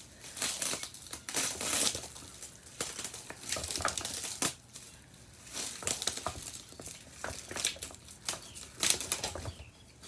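Packing material crinkling and rustling in irregular bursts as a boxed item is handled, with a few light clicks and knocks.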